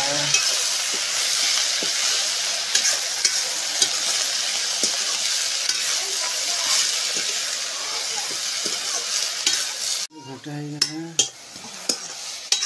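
Freshly added chopped luri greens frying in hot oil in a steel kadai, giving a loud, high sizzling hiss broken by the clicks of a ladle stirring against the pan. About ten seconds in the sizzle cuts out abruptly, and only scattered stirring clicks are left.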